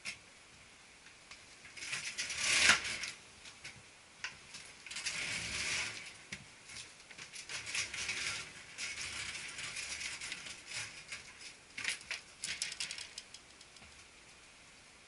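Handling noises on a Konica Minolta bizhub C252 copier: irregular plastic clicks, rattles and scuffs. A quick run of sharp clicks comes near the end as the front door is unlatched and swung open.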